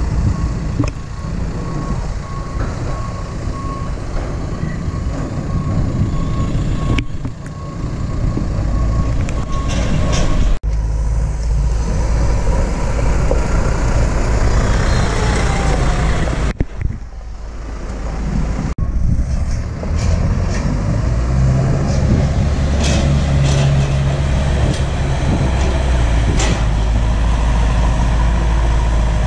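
Farm tractors and a telehandler running at a silage clamp. A reversing alarm beeps steadily for about the first ten seconds. Later the engine noise grows louder as a tractor towing a silage trailer drives close by, and the sound breaks off abruptly a few times.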